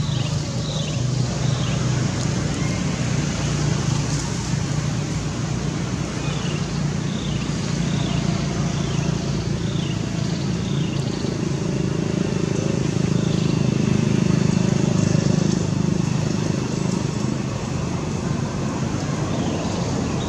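Steady low rumble of distant road traffic, swelling a little in the middle, with short high falling chirps repeated every second or so early on and again through the middle.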